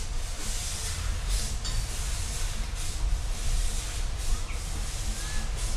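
Field recording of a steam locomotive: repeated irregular bursts of hissing steam over a steady low rumble.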